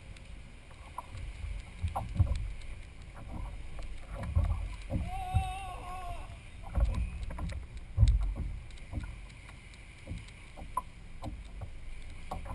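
Water lapping against a kayak's hull, with irregular low thumps as the boat rocks, the loudest about eight seconds in.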